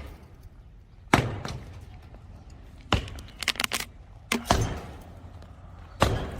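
Sledgehammer blows on a structure being demolished: four heavy strikes about one and a half to two seconds apart, the second followed by a quick patter of smaller cracks.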